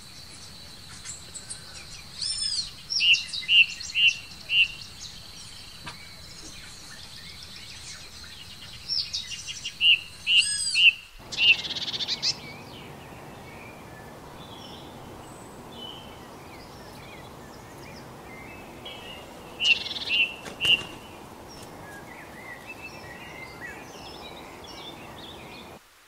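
Songbird singing in short bursts of repeated clear whistled notes, about 2 to 5 seconds in, 9 to 12 seconds in and again around 20 seconds, with scattered softer chirps between. A thin steady high tone runs under the first ten seconds, and the background changes abruptly about eleven seconds in.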